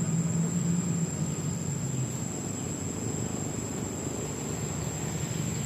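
Steady low engine hum, strongest in the first second and then easing off a little, with a thin steady high-pitched tone above it.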